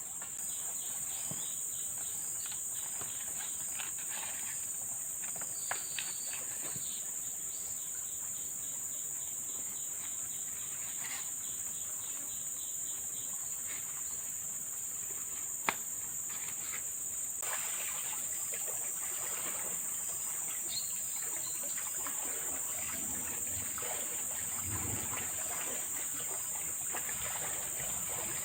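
Forest insects droning steadily in two high-pitched bands. Through the first half a rapid ticking call repeats several times a second, then stops; a few sharp clicks are scattered through.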